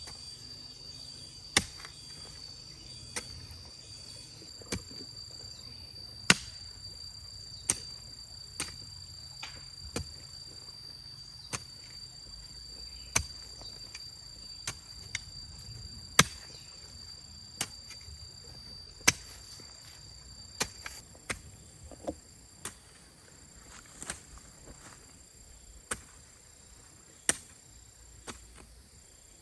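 Repeated sharp chopping strikes from a hand tool, irregular, about one every second, about two dozen in all. A steady high insect trill runs behind them and stops about two-thirds of the way through.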